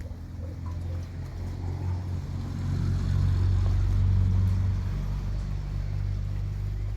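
A low steady rumble that swells about three seconds in and eases off toward the end.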